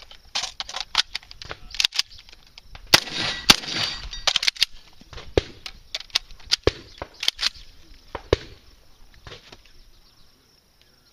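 Magazine-fed shotgun firing many shots in quick strings, several a second, with short pauses between strings; the shots stop about nine seconds in.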